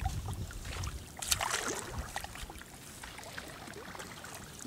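Double-bladed kayak paddle stroking through creek water, with a splash about a second in and small drips and trickles from the blades after it.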